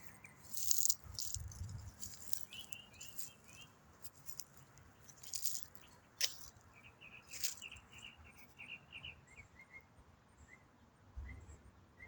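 A songbird singing a long, unbroken, varied song: runs of quick, high chirping notes broken every second or two by short, harsh, noisy bursts.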